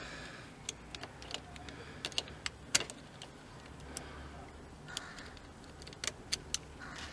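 Irregular sharp metallic clicks and taps as pliers grip and work at a bicycle brake lever's clamp on the handlebar, the loudest click a little under three seconds in.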